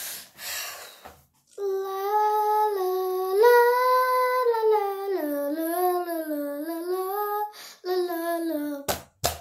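A young girl singing a tune in long held notes that step up and down in pitch, after a second or so of breathy whispering. Two sharp knocks come near the end.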